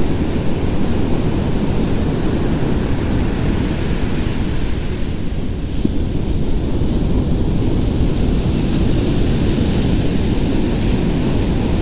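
Ocean surf breaking and washing up the beach, mixed with steady wind rumbling on the microphone.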